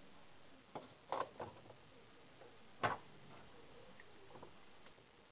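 Handling noise: a few scattered light clicks and taps, the sharpest about three seconds in, over faint room hiss.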